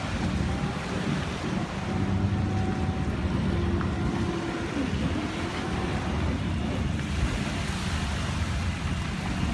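Longtail boat engine running steadily, with water and wind noise on the microphone.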